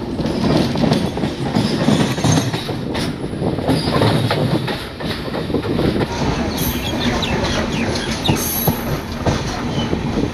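Passenger train running at speed, heard from aboard a coach: steady rumble and rattle with repeated clacks of the wheels over the rail joints, and a few brief high squeals of the wheels in the second half.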